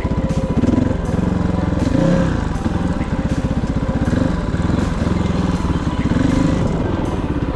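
Kovi 450i Pro enduro motorcycle's single-cylinder four-stroke engine running under load while ridden, revs rising and falling several times.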